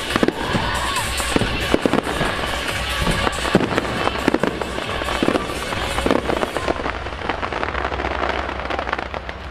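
Aerial firework shells bursting in a rapid barrage of bangs and crackle, with show music playing alongside.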